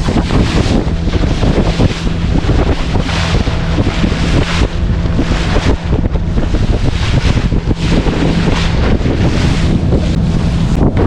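Wind buffets the microphone in gusts over the steady drone of a motorboat's engine, with water rushing past.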